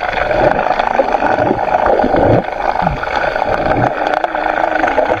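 Muffled underwater noise picked up by a submerged camera: a steady rush of water with gurgles and a few low swooshes, and a brief low hum near the end.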